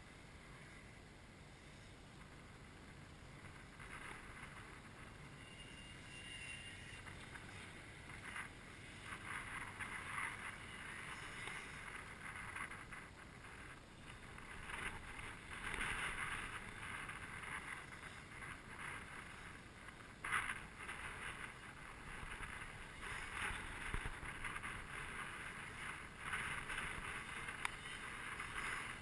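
Distant two-stroke shifter kart engines buzzing around the track, swelling and fading several times without a close pass, with wind on the microphone.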